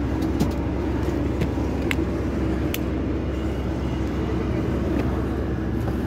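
Steady low rumble of an aircraft engine running on the apron, with a few light clicks and knocks.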